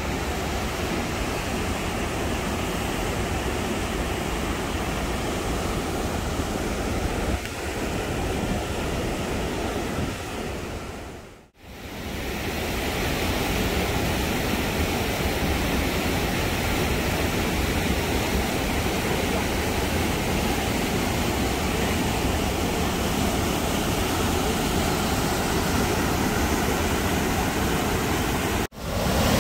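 Steady rush of whitewater rapids pouring over a waterfall on a large river. It cuts out briefly about eleven seconds in and again near the end.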